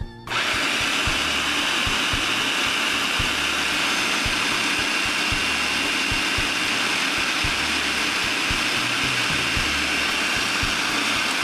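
Electric food processor switched on just after the start and running steadily, its blade whirring through a thick batch of hummus as it purees it smooth.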